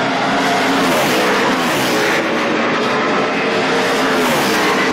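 NASCAR Sprint Cup race cars' V8 engines running at speed, loud and continuous, with the engine pitch shifting as cars go by.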